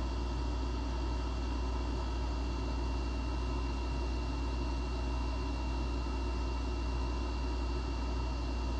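Steady machine hum with a strong low drone and a faint thin high whine, unchanging throughout.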